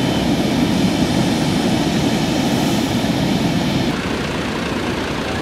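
Tractor engine running steadily on the beach, a dense low drone mixed with surf. About four seconds in it gives way to quieter, more open beach ambience.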